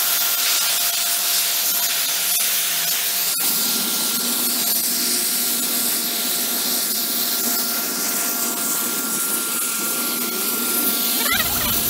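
Pressure-washer jet spraying steaming water onto a metal grille filter: a loud, steady hiss, with a faint steady whine under it.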